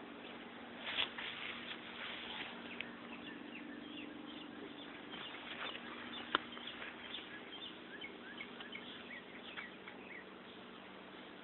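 Scattered short, high animal chirps and squeaks over a steady low hum, with one sharp click about six seconds in.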